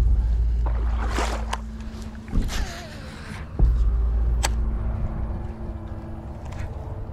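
Wind buffeting the microphone in a steady low rumble that drops out for about a second, two and a half seconds in. A few sharp clicks and rustles come over it as a baitcasting rod and reel are handled for a cast.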